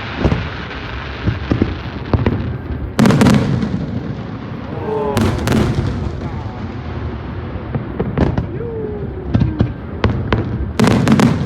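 Fireworks going off: a string of sharp bangs over a steady background rumble, the loudest about three and five seconds in, with a quick cluster of bangs near the end.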